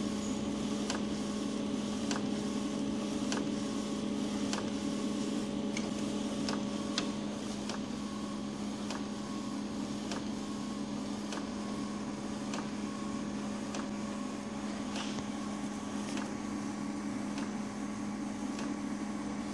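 UV flatbed printer running while it prints the colour ink layer: a steady machine hum with a regular tick a little under twice a second as the print-head carriage shuttles back and forth.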